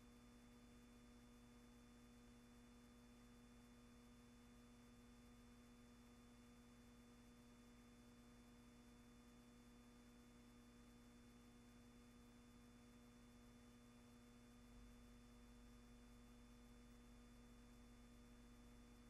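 Near silence: a faint, steady hum and hiss with no sound from the scene itself.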